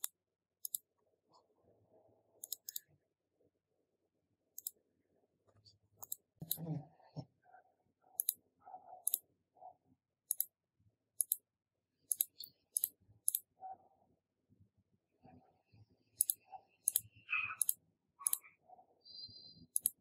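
Irregular sharp clicks, a dozen or so spread unevenly, with soft knocks and rustling between them, and a brief high tone near the end.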